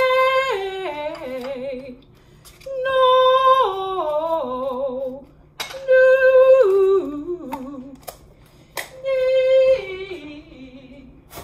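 A woman's voice singing a vocal warm-up exercise: four descending scale phrases, each starting on a held high note and stepping down about an octave to a low note held with vibrato. A few sharp clicks fall between the phrases.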